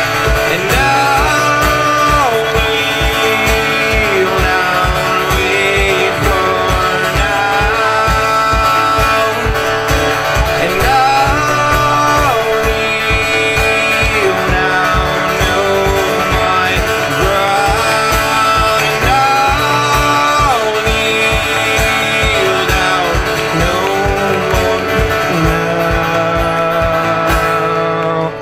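A man singing held notes that slide up and down, over a steady strummed acoustic guitar, amplified through a stage sound system.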